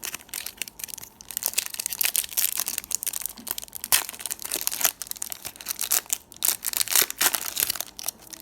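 Trading card pack wrapper being torn open and crinkled by hand: a dense, crackly rustling with sharp crackles, picking up about a second in.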